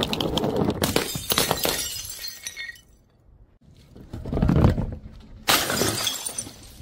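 Bottles filled with coloured sand and paint sliding down a wooden board and smashing on tile paving: a long crackling shatter with scattering pieces, a pause, a low rumbling slide, then a second sudden crash about five and a half seconds in.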